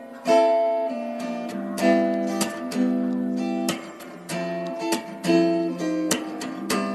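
Background music: acoustic guitar strumming chords, with a fresh strum every half second to second.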